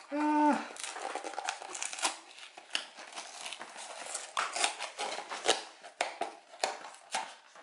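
A small cardboard toy box being opened by hand: the flap pulled open and the cardboard and packaging handled, with a dense run of crinkling, crackling and small clicks. A brief vocal sound comes right at the start.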